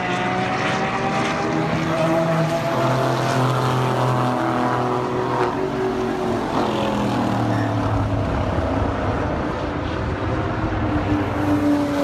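Engines of several cars running at speed around a road-racing circuit, overlapping, their pitch rising and falling as they accelerate and pass; one car passes close on the straight about six seconds in.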